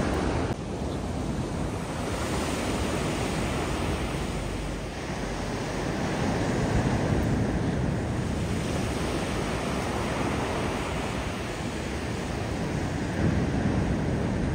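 Steady rushing noise of wind buffeting the microphone, mixed with sea surf, swelling slightly a few times.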